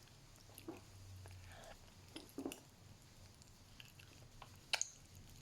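Faint chewing of a jelly candy, with scattered small crackles and clicks from the candy that crackles in the mouth.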